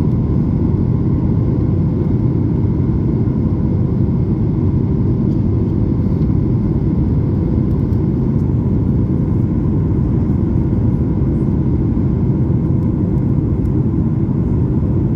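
Steady cabin noise inside a Boeing 737 MAX 8 in the climb after takeoff: its CFM LEAP-1B engines and the airflow make a loud, even rumble with a few faint steady tones above it.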